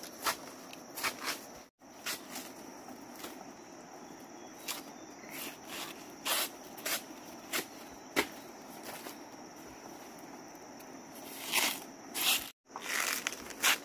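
Footsteps crunching and rustling through dry leaves and undergrowth, a string of irregular short crunches over a steady high-pitched drone. The sound drops out briefly twice, about two seconds in and near the end.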